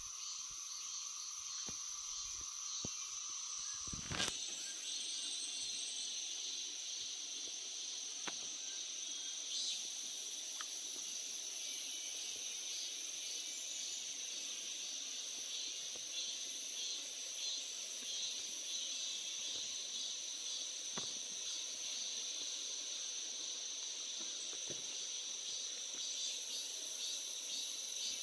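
Summer insects shrilling in a steady high chorus with a pulsing edge, swelling louder about ten seconds in and again near the end.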